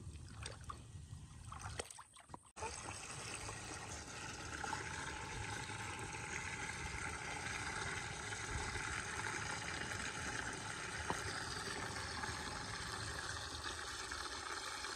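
Water running from a garden hose into a plastic basin, a steady splashing pour as the basin fills. It starts suddenly about two and a half seconds in.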